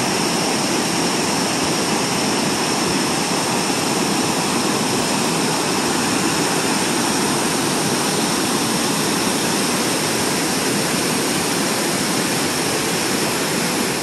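Steady rush of a cascading waterfall, water pouring over stepped rock ledges and churning into a pool.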